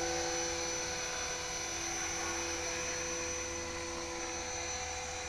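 HK-450GT electric RC helicopter in flight, its brushless motor and rotor running with a steady, even whine.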